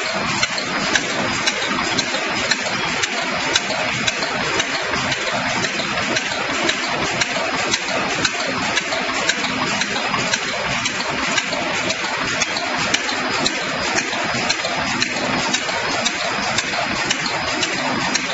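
Wood wool machine running under load as its knives shave a log into fine strands: a steady mechanical clatter with sharp ticks repeating a few times a second.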